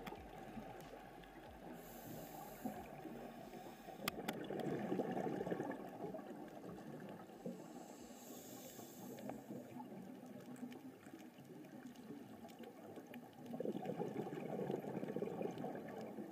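Scuba regulator breathing underwater: a short hiss of inhalation, then a longer bubbling rush of exhaled bubbles, twice.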